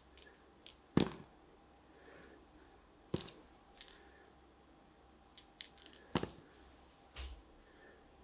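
Two dice being handled and rolled onto a game board, heard as a few scattered sharp clicks and taps. The sharpest is about a second in, and a cluster of lighter taps comes later.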